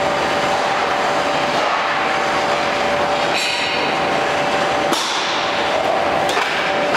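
CNC angle steel punching and shearing line running, a steady mechanical noise with a steady whine over it. Three sharp metallic clanks ring out about a second and a half apart in the second half, as the steel angles are worked and handled on the line.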